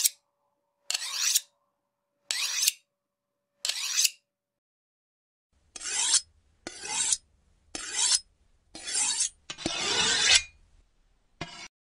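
A knife blade being drawn along a sharpening steel: metal-on-metal scraping strokes. There are four short strokes about a second and a half apart, then, after a short gap, a second series of six strokes about a second apart, the fifth one longer.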